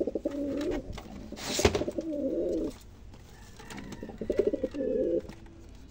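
Domestic pigeons cooing in three low, wavering phrases, with a brief rustle about one and a half seconds in.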